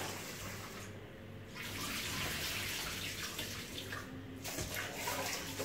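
Kitchen tap running into a metal rice-cooker pot while rice is washed in it by hand, with water splashing in the pot. The splashing drops away briefly twice, about a second in and again around four seconds in.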